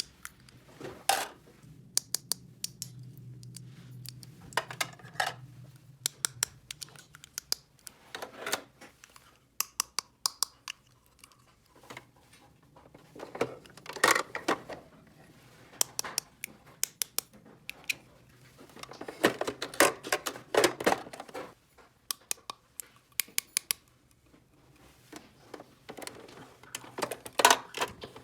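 Small plastic toy kitchen pieces being handled: many quick clicks and taps as parts are set down and snapped together, with a few short bouts of denser clattering.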